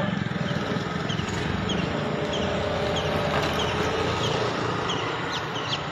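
Street background noise with a vehicle engine running, and small birds chirping briefly again and again.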